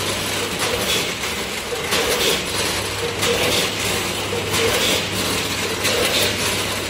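Multihead weigher running with small round biscuits: a steady low hum under a continuous clatter of the biscuits rattling through the stainless-steel feed pans and weigh hoppers, with louder bursts of clatter about once a second.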